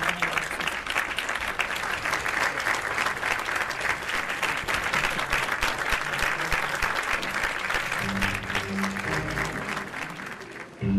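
Audience applauding steadily, with music starting up underneath about eight seconds in as the clapping thins out near the end.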